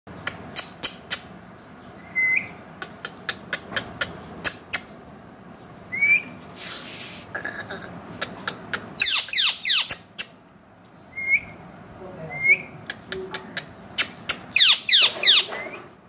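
Indian ringneck parakeet calling: a few short rising whistled notes, and twice a burst of harsh falling screeches, the loudest sounds. Sharp clicks come through the whole time.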